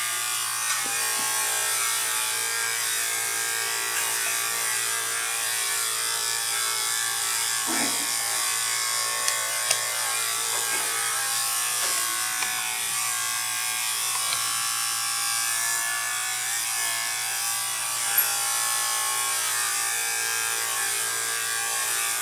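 Corded electric dog clipper with an attachment comb guard, buzzing steadily as it cuts through a Shih Tzu's coat, with a few brief clicks.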